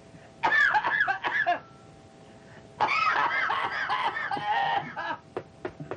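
A person's voice making wordless sounds in two bursts, one about half a second in and a longer one about three seconds in, over faint steady tones.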